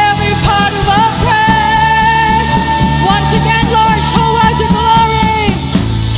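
Live worship band playing a rock-style song, with a steady drum beat under a sung lead line that holds one long note. The band thins out near the end.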